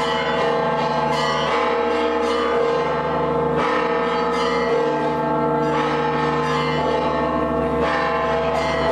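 Church bells of the Church of the Holy Sepulchre pealing, many bell tones overlapping and hanging on, with fresh strikes every second or two.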